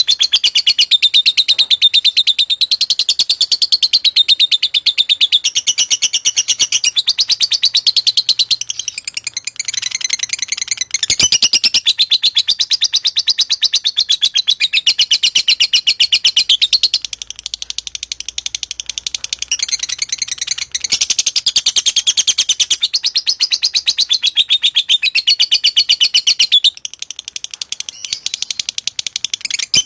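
Lovebird singing a long, rapid, high-pitched chattering trill that runs on almost without a break, easing off briefly three times.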